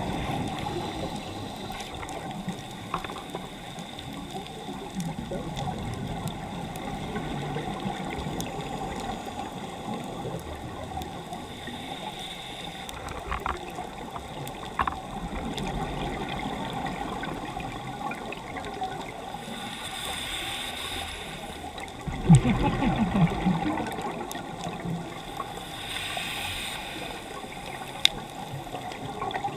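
Underwater reef ambience with a scuba diver's regulator breathing: a hissing inhale about twenty seconds in, followed by a loud bubbling exhale, and another inhale near the end. Scattered sharp clicks can be heard throughout.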